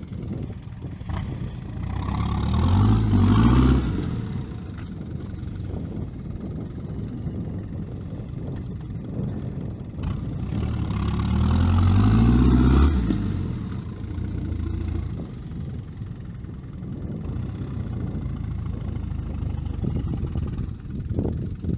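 Daihatsu Rocky 4x4's turbo engine revving up twice, about ten seconds apart, under load as the vehicle works through soft sand, running lower and steadier in between.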